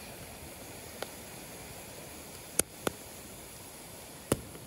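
Wood campfire burning, with four sharp crackling pops over a steady low hiss.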